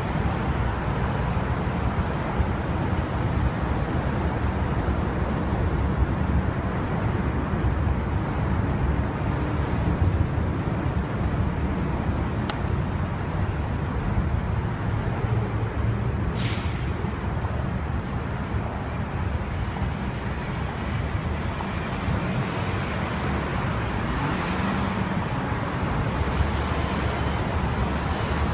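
City street traffic rumbling steadily beneath an elevated freeway, with a brief hiss about halfway through and another near the end.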